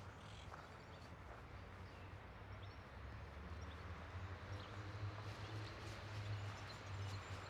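Outdoor garden ambience: a walker's footsteps on a path, with faint bird chirps over a steady low rumble.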